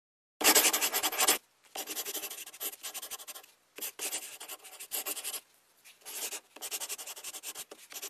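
Drawing strokes scratching across paper in quick, dense runs, about five spurts with short pauses between them, the first the loudest.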